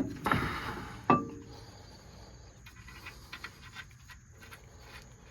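Steel brake rotor and wheel-bearing parts being handled: a scraping shuffle, then one sharp metallic clink about a second in that rings on briefly, followed by faint light clicks of handling.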